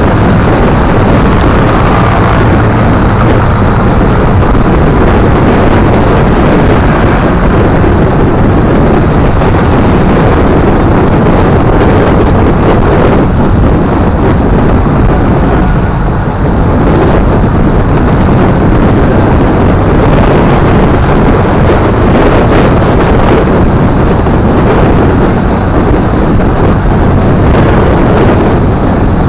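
Heavy, steady wind rumble on the microphone of a moving motorbike, with road and traffic noise underneath.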